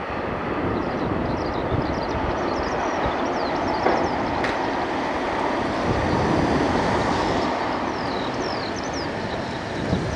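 Meitetsu 2000-series μSKY electric express train running past on an elevated concrete viaduct: a steady rumble of wheels on rail that swells toward the middle, with a couple of short clicks about four seconds in.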